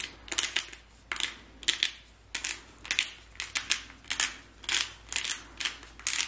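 Disposable glass salt grinder being twisted by hand, its mill crunching salt crystals in a run of sharp, gritty clicks, a few per second in small clusters.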